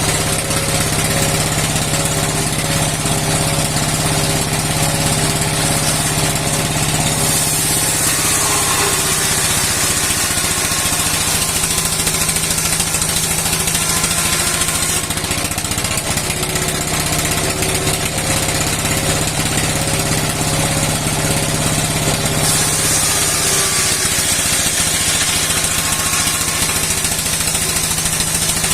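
Old stationary engine running steadily, driving a steel saw that cuts wood. A high hiss grows louder for several seconds at a time, about a third of the way in and again near the end.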